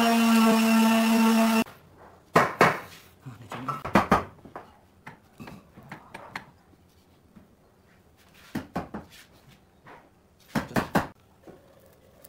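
A power tool's motor runs with a steady whine and cuts off about a second and a half in. Then come scattered sharp knocks and clatters of wood and tools being handled, in a few short clusters.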